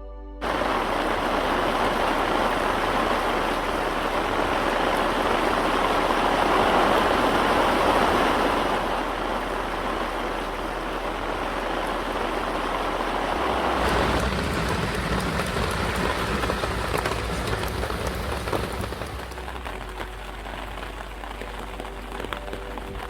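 Rain falling, an even hiss that cuts in suddenly right at the start. A deeper rumble joins about 14 seconds in, and the rain grows softer near the end.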